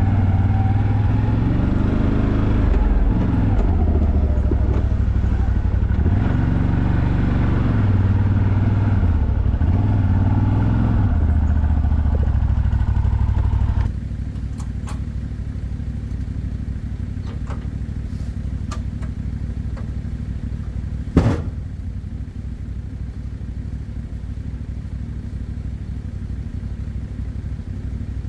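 CF Moto 850XC ATV's V-twin engine running under way, revving up and down with the throttle. About halfway through it gives way to a steadier, quieter engine idle, with a few light clicks and one loud sharp knock about two-thirds of the way in.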